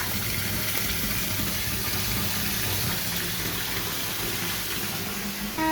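Water running steadily from a bath tap, an even rushing hiss.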